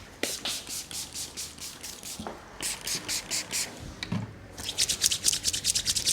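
Hands rubbing briskly over skin in a barber's massage, in quick rhythmic strokes that come in runs and speed up near the end.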